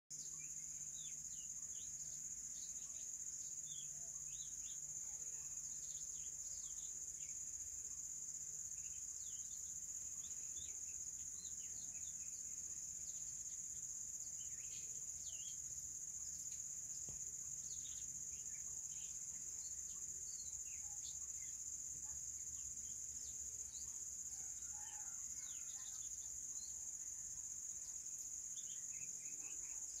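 Outdoor nature ambience: insects droning in one steady high-pitched tone, with small birds chirping in many short calls throughout.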